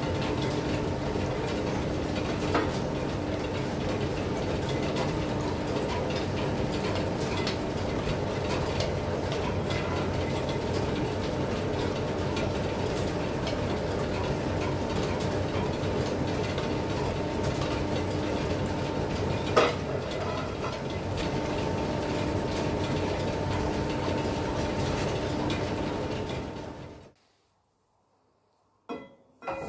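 Metal lathe running under power, its gears clattering steadily over a hum. There is one sharp knock about twenty seconds in, and the sound cuts off abruptly near the end.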